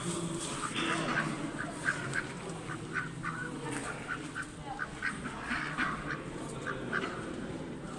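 Domestic ducks quacking in a quick series of short, repeated quacks.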